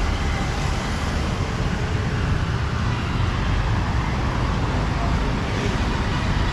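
Steady street traffic noise from passing vehicles, with no single event standing out.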